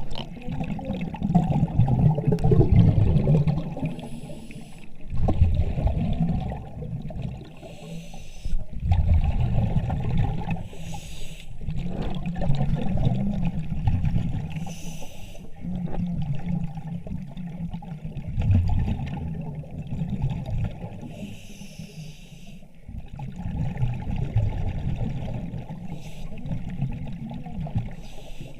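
A diver breathing on surface-supplied air: a short hiss of air about every three to four seconds, between swells of low bubbling as exhaled air escapes into the water.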